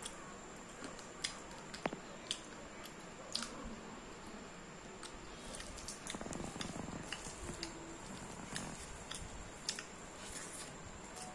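A man eating a rice meal by hand off a banana leaf: close chewing and wet mouth sounds with small clicks and squishes as his fingers knead the rice, the chewing densest about six to seven seconds in.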